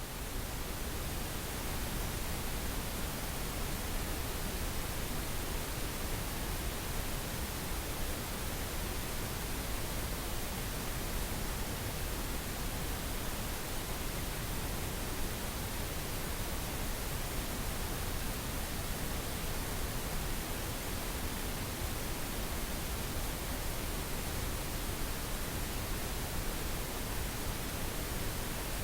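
Synthetic pink noise: an even, steady hiss that swells up from silence over the first second and then holds level.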